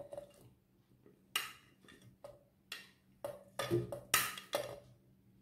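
Pineapple chunks tipped from a plate into a stainless steel mixer-grinder jar: a series of irregular clinks and knocks of fruit and plate edge against the steel jar, about seven in all, the loudest near four seconds in.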